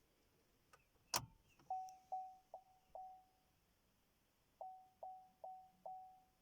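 A sharp click, then two sets of four short, evenly spaced warning beeps from an Astra K's chime as it fails to start with an 'ESC service' warning.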